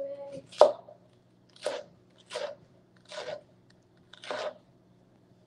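Chef's knife chopping through crisp vegetable strips onto a cutting board: about six separate cuts roughly a second apart, the second one the loudest.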